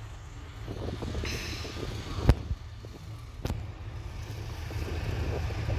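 Wind rumbling on the microphone, a steady low rumble, broken by two sharp clicks a little over a second apart.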